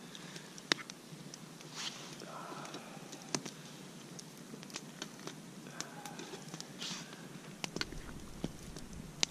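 Metal spoon clinking against an enamel camp mug as oatmeal is stirred, with a short pour of hot water from a kettle into the mug. The clinks come as scattered sharp ticks.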